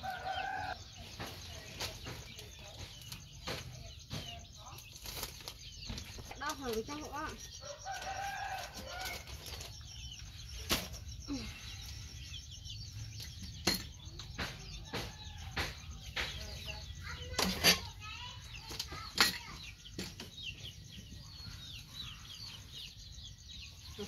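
Towel rubbing and handling noise with many scattered sharp clicks and knocks, the loudest a pair about two-thirds of the way through. Chickens cluck in the background.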